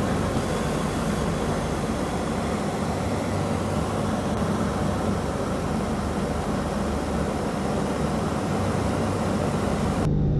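Steady engine and airflow drone heard aboard an aircraft in flight. Just before the end it cuts to a deeper turboprop propeller drone with a steady low hum.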